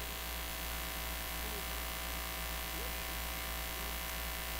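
Steady electrical mains hum with a faint hiss from a sound system, with no one on the microphone.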